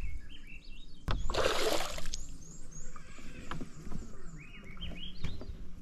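A hooked smallmouth bass splashing at the surface beside the boat: one short splash about a second in, with faint high chirps around it.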